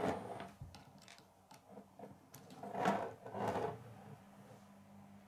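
Plastic K'nex parts handled and fitted together while a wheel on its rod is pushed onto the frame: a scrape right at the start, scattered light clicks, and two short scraping rustles about three seconds in.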